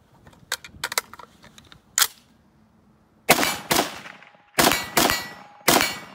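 A few sharp metallic clicks as the Robinson Arms XCR rifle in 5.56 is handled, then, starting about three seconds in, five loud shots from it within about two and a half seconds, each with a short decaying tail.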